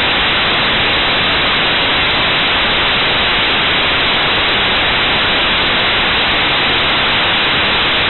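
Loud, steady static hiss from an analog FPV goggle DVR recording: the video receiver's audio channel carries only noise, with no change.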